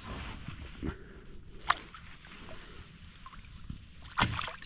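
A hooked pickerel thrashing at the water's surface beside a kayak: water sloshing and gurgling, a short sharp click a little under two seconds in, and a loud splash near the end as the fish breaks the surface.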